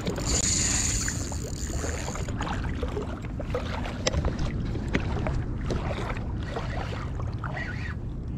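Steady low rumble of wind on the microphone, with scattered light clicks and taps from handling a spinning rod and reel, sharpest about four and five seconds in.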